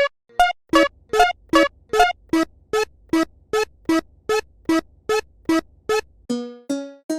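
Railroad crossing warning bell dinging in an even beat, about two and a half dings a second, over a low hum. About six seconds in the hum stops and the dings start changing pitch from one to the next, like a tune.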